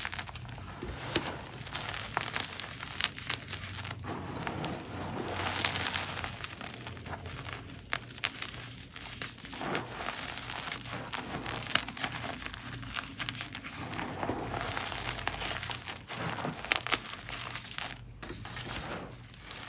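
Gym chalk chunks and blocks being crushed into powder, a continuous crunchy crumbling broken by many small sharp cracks.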